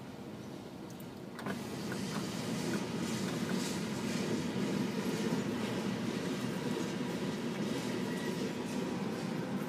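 Freight train of covered hoppers and boxcars rolling past, a steady rumble of wheels on rail heard from inside a car's cabin, getting louder about a second and a half in.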